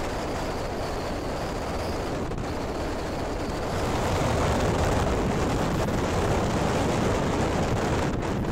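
A vehicle in motion: a steady rumbling rush of motor, road and wind noise that grows louder about four seconds in.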